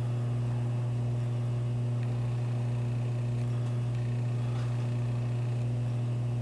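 Steady low electrical hum with a fainter higher overtone, unchanging, with nothing else happening.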